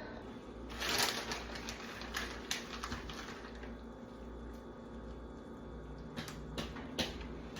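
Scattered light clicks and knocks of kitchenware being handled, with a short rustling burst about a second in and a few sharper clicks near the end.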